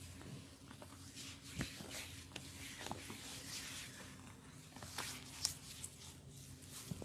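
Hands rubbing and working over skin and hair in a massage, a soft continuous rustling with several sharp clicks and taps along the way.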